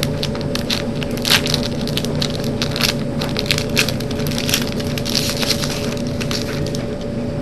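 A 2003 NFL Showdown booster pack being torn open, its wrapper crinkling in a dense run of crackles that thins out near the end.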